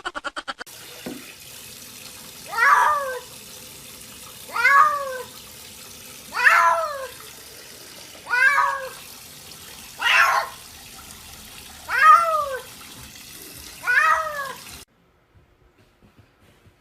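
Domestic cat meowing seven times, about every two seconds, each meow rising then falling in pitch, over a steady hiss that cuts off suddenly near the end.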